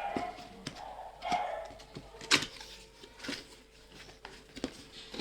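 Projector packaging being handled as the contents are lifted out of the box: cardboard and plastic rustling, with scattered knocks and taps, the loudest about two seconds in.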